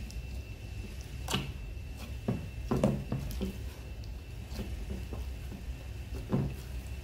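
Slime being kneaded and squeezed by a child's hands in a glass baking dish: irregular soft squelches and pops, with the odd tap of hands or slime against the glass, about seven in all.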